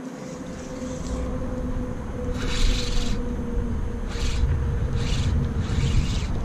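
Spinning reel whirring in about five short bursts while a hooked fish is fought on a hard-bent rod, over wind rumble on the microphone and a steady low hum.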